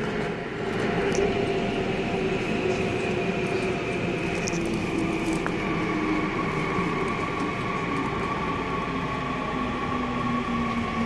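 Seoul Subway Line 9 train running, heard from inside the car: a steady rumble of wheels on rail with a motor whine that slowly glides down in pitch, and a higher whine joining about halfway through.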